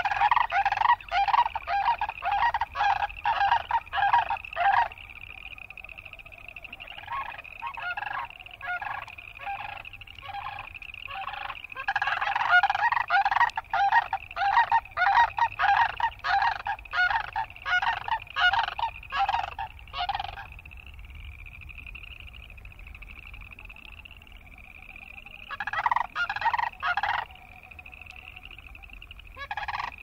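A steady chorus of boreal chorus frogs, each call a short rising trill, with loud bursts of rattling, honking calls from sandhill cranes over it: at the start, again through the middle for several seconds, and briefly near the end.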